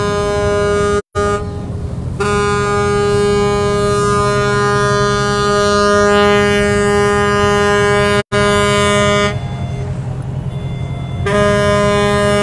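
Ship's horn sounding long, steady blasts at one unchanging pitch, breaking off for about a second near the start and fading back around nine to eleven seconds in, over the low rumble of a speedboat running on open water. The sound cuts out completely for an instant twice.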